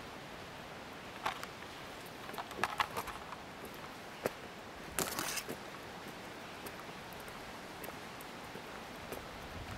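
Outdoor ambience: a steady hiss with scattered crackles and clicks, a cluster of them near the middle and a short burst of crackling about halfway through.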